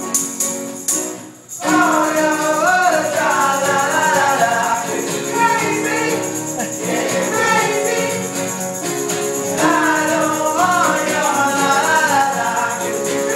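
Live informal music: guitars strummed with a man singing the melody. A short gap about a second in, then the strumming and singing carry on steadily.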